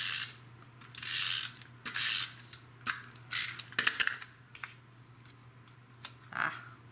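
Tape runner laying adhesive along a cardstock strip: three short rasping zips in the first two seconds. Then a few light clicks and taps as it is put down and the strip handled, and a brief paper rustle near the end.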